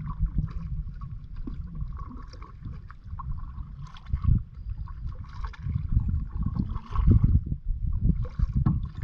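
Kayak paddling: water splashing and gurgling around the paddles and hull in uneven swells, over a low rumble of wind on the microphone.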